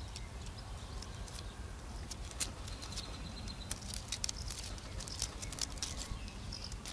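Irregular small clicks and rustles of hands working a grapevine, snapping off surplus young shoots, over a low steady rumble.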